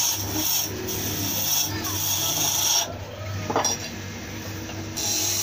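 Hand-held turning tool scraping into a spinning wooden top blank on a homemade wood lathe, a dense rasping cut over a steady low hum. About three seconds in the cutting stops, leaving the lathe's hum and a brief clink, and the tool bites again near the end.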